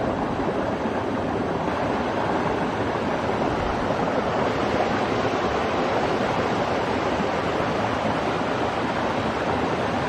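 Steady rush of falling water from a waterfall, with the creek splashing down between boulders at its base.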